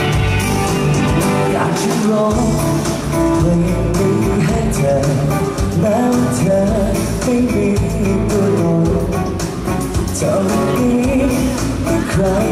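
Live band playing the instrumental intro of a Thai pop-rock song: guitar to the fore over bass and drums, with a gliding melody line.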